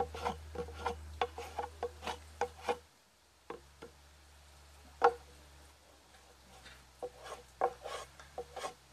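Short rasping strokes on a wooden plank as it is smoothed by hand. The strokes come in two spells with a pause between them, and there is a single sharp knock about five seconds in.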